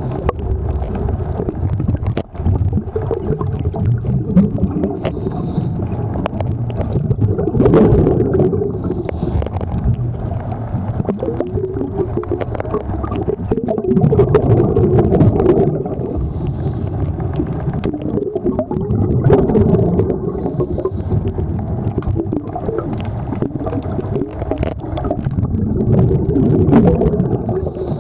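Scuba diver's breathing heard through the water: a gush of exhaled bubbles from the regulator about every six seconds, with fainter hisses between, over a steady low rumble.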